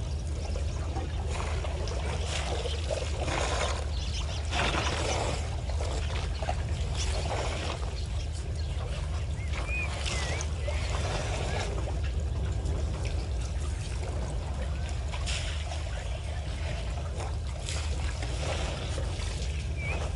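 African elephants drinking at a waterhole: water splashing and trickling as they draw it up and pour it from their trunks, in irregular spells over a steady low rumble. A few short bird chirps come midway and near the end.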